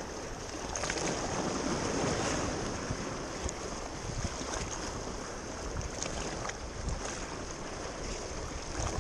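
Sea surf washing against a rocky shore, with wind on the microphone; the wash swells a little a couple of seconds in.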